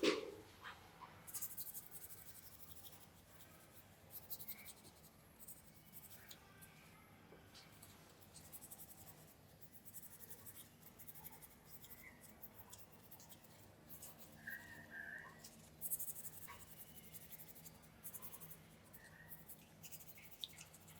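Faint, intermittent scratching in short spells of strokes, the sound of hand scraping or rubbing on a part, with a sharp click at the very start.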